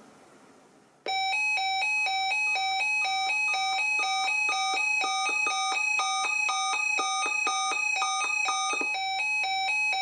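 Weather alert radio's built-in alarm going off as a tornado watch comes in: a fast, repeating pattern of stepped electronic beeps at several pitches, starting suddenly about a second in.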